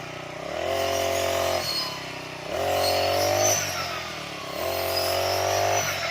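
Small engine of a brush cutter revving up three times, about two seconds apart. Each burst holds at high speed for about a second, then drops back to idle, as the blade is worked into the grass.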